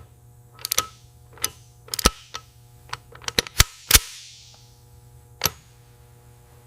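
Bearings being pressed into an engine housing: about ten sharp clicks and knocks at irregular spacing, one about four seconds in trailing a short hiss, over a low steady hum.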